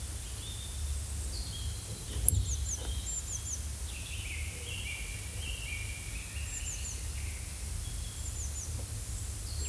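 Forest ambience: small birds chirping in short falling high notes, often two or three in quick succession, with longer warbling notes between them, over a low steady rumble. A single sharp tick about two seconds in.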